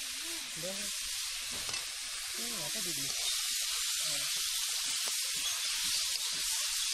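Chopped onions sizzling in hot mustard oil in an iron kadai, a steady frying hiss. Partway through, a steel ladle starts stirring them. Faint voices can be heard in the first few seconds.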